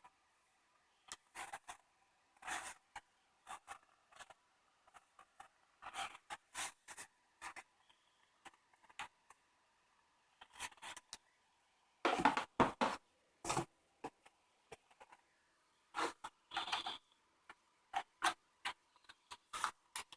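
Scattered small clicks, taps and scrapes of hands handling a plastic laptop cooling pad and its USB cable while plugging it in, with a louder run of knocks a little past the middle.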